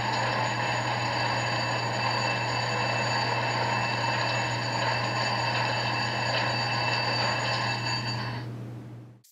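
LokSound sound decoder in an HO scale Amtrak P42 model locomotive playing the GE Genesis diesel engine sound through the model's small speaker, running steadily, then fading out near the end.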